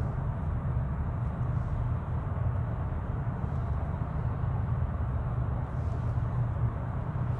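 Steady cabin noise inside a 2021 Kia Sorento 2.2 CRDi diesel cruising at 80 km/h, an even low rumble of road and engine noise with no changes, measured at about 61 to 63 dB(A).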